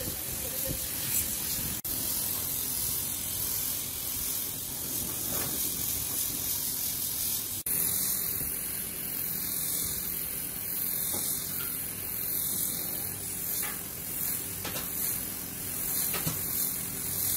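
Steady hissing noise, broken twice by a split-second dropout.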